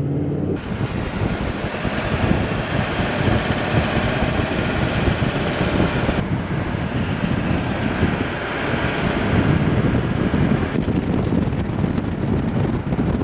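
Wind rushing over the microphone of a camera mounted on the outside of a moving pickup truck, with tyre and road noise underneath. The rush changes abruptly about half a second in, about six seconds in and near eleven seconds.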